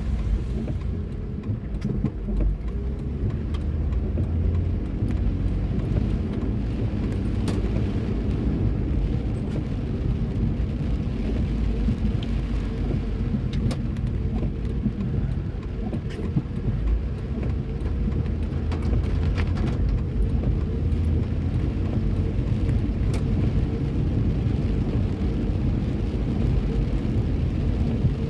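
Steady low rumble of a car driving slowly on wet pavement, engine and tyre noise heard from inside the cabin, with a few scattered light ticks.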